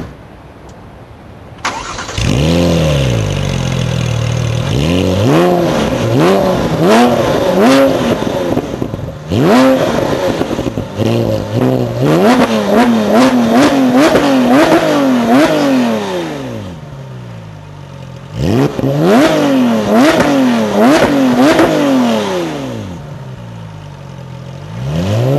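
Porsche 997 GT3/RS flat-six engine through an FVD race exhaust, starting about two seconds in and then revved in repeated quick blips and a few longer revs. It drops back to a steady idle twice in between, and revs up again near the end.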